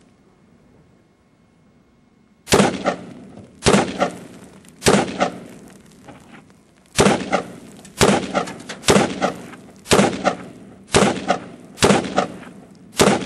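AK-47 rifle firing 7.62×39 rounds in slow semi-automatic fire: about ten sharp shots roughly a second apart, starting a couple of seconds in, each trailing off briefly.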